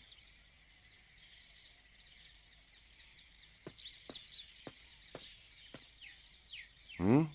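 Birds chirping in the background, with a run of evenly spaced footsteps, about two a second, in the middle. Just before the end comes a short loud vocal exclamation.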